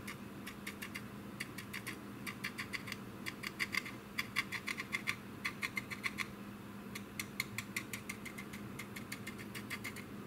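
Stiff-bristled paintbrush scrubbing weathering paint onto a plastic model wing in short, quick strokes: a rapid run of dry scratches, about six a second, loudest in the middle. A steady low hum runs underneath.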